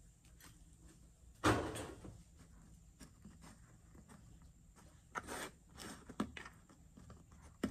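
Handling noises at a craft table: a sudden, louder scrape-like noise about a second and a half in, then a few shorter scuffs and a sharp click near the end, as hands press a foam clay braid border onto the rim of a fake pie.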